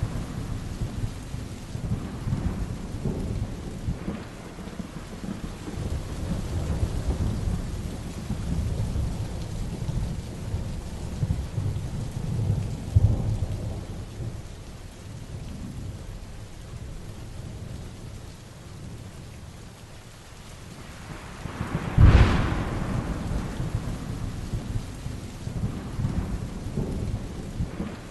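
Heavy rain falling steadily while thunder rumbles on and off. A loud, sharp thunderclap comes about 22 seconds in and rolls away into rumbling.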